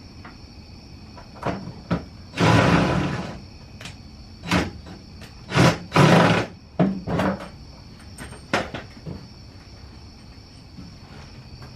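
Hands-on work under a car: a string of separate knocks and clunks with short scraping bursts from parts and tools being handled, the longest scrape lasting close to a second, over a steady high-pitched hum.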